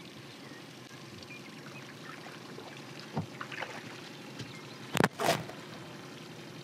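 Steady low hum of an outboard motor running at trolling speed, with water washing along the boat's hull. About five seconds in there are two brief, loud bursts of noise.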